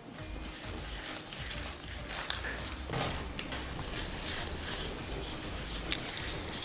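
Gloved hands rubbing and massaging a wet, grainy marinade into raw pork knuckles in a stainless steel bowl: squelching and rubbing, with a few sharp clicks as the meat and gloves knock against the bowl.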